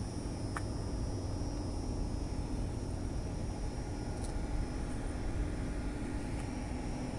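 Steady low rumble of a truck engine running, with a faint steady high whine over it and a few faint ticks.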